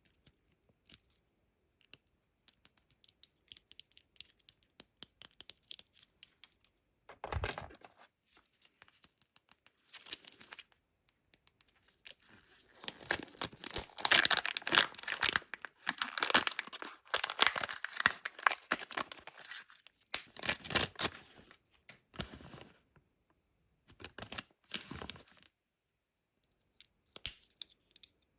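Kinder Joy egg's foil wrapper being torn open and crinkled, densest for about ten seconds through the middle. Scattered light clicks and taps come before and after, and a single dull thump falls a little after seven seconds in.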